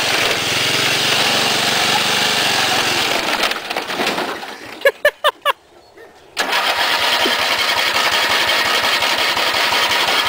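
The John Deere Sabre lawn tractor's 11 hp Briggs & Stratton engine is running. About four seconds in it dies away, and a quick series of four short cranking strokes follows. Then the engine catches suddenly about six seconds in and runs steadily again.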